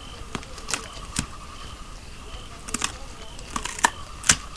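Faint steady chirping of night insects, broken by a few sharp clicks and ticks, the loudest two near the end.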